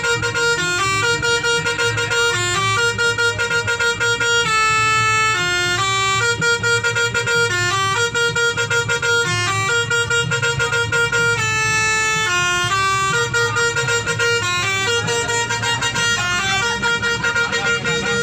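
Indonesian bus 'telolet' musical horn playing a quick tune of short stepped notes, repeating the melody over and over, with a steady low engine rumble beneath.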